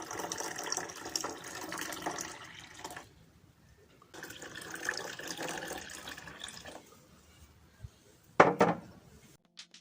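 Water running from a tap in two spells, stopping for about a second between them. Near the end, a couple of loud knocks.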